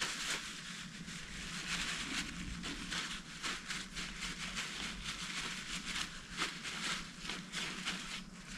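Cloth rubbing over a flat bike pedal to clean it: a scratchy rubbing made of many quick short strokes.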